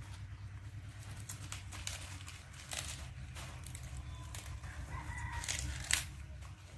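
Fresh lettuce leaves torn apart by hand, crinkling and snapping in short bursts over a steady low hum, with a brief tonal call in the background about five seconds in.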